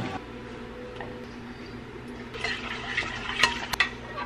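Kitchen clatter: a metal pan knocking and scraping against a ceramic bowl as pasta is tipped out of it, with a few sharp clinks in the second half.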